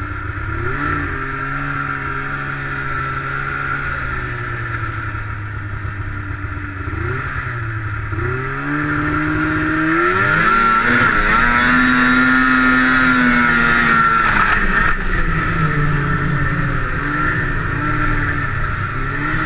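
Two-stroke snowmobile engine running and revving. About nine seconds in it climbs to a higher, louder pitch, holds it for several seconds, then eases off.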